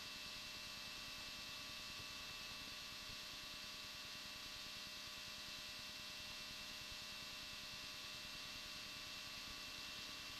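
Faint, steady hiss with a few thin, constant hum tones: the background noise of a light aircraft's cockpit audio feed on approach, with no change throughout.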